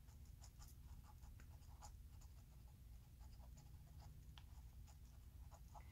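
Faint scratching of a pen writing on a paper worksheet, in many short, irregular strokes.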